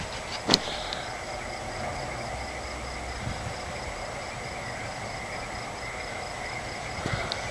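Steady outdoor chorus of night insects and frogs, with a high trill pulsing evenly several times a second over lower steady trilling. A single sharp click about half a second in.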